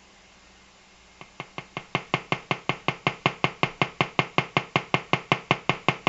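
Electrical interference from a battery-powered colour-changing LED lamp: an even run of sharp clicks, about six a second, starting a second or so in and growing louder.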